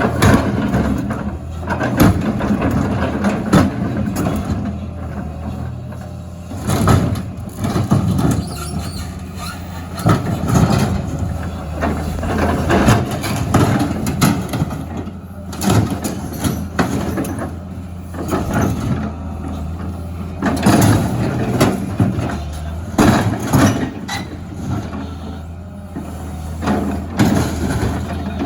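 A heavy diesel excavator runs steadily while metal dumpsters are struck, crushed and scraped, with irregular clanks and bangs and short squeals of metal throughout.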